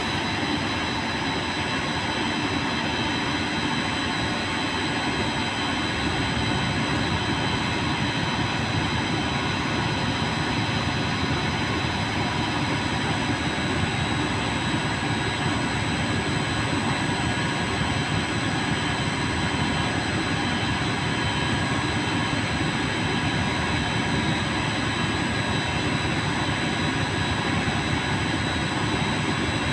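TIG welding in progress: a steady, unbroken hiss and hum from the arc and the welding set with its water-cooling pump unit, with several fixed high whining tones over it.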